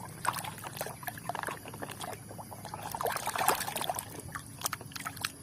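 Water splashing and trickling with many small irregular knocks as a mud-covered toy is washed clean in water.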